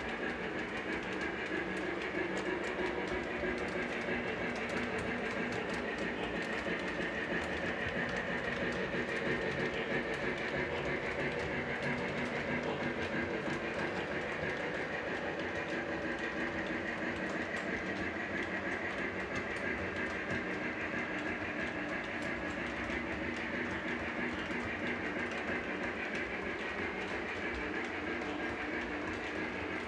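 Lionel O-gauge Santa Fe 3751 steam locomotive and its streamlined passenger cars running on three-rail track: a steady rolling rumble of metal wheels on rail with a constant high hum and light clicking. It swells slightly about ten seconds in.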